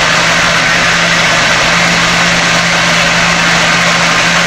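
Countertop blender running steadily, its motor giving a constant hum under a loud whirr as it purées curdled milk with margarine and salt into creamy requeijão; the spread is almost smooth, with a little more blending to go.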